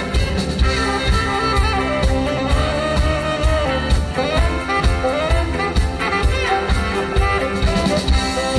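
Live band playing an instrumental passage through a PA: a drum kit keeps a steady beat under bass, keyboard and electric guitars, with a melodic lead line on top.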